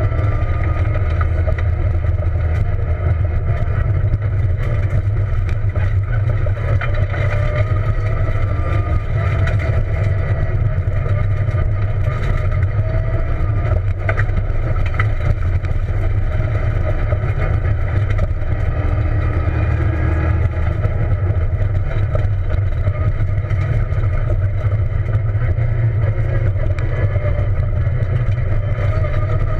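Peugeot 207 rally car's engine heard from inside the cabin, its revs rising and falling as it is driven hard on a dirt road, over a steady low rumble, with a few light clicks.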